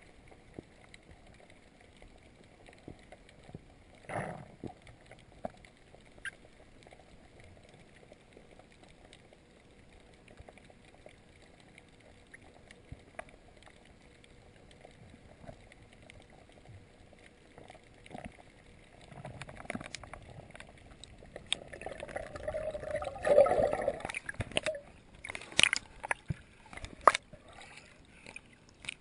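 Water heard through an underwater camera: at first a faint hiss with scattered clicks, then from about two-thirds of the way through, louder sloshing, gurgling and splashing as the camera comes up and breaks the sea surface.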